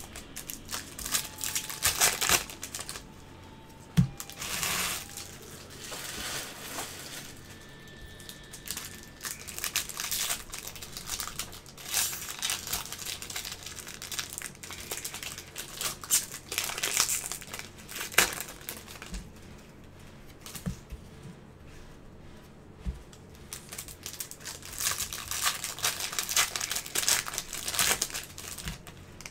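Plastic wrappers of baseball card packs crinkling and tearing in irregular bursts as the packs are handled and ripped open, with a few short knocks as packs and cards are set down on the table.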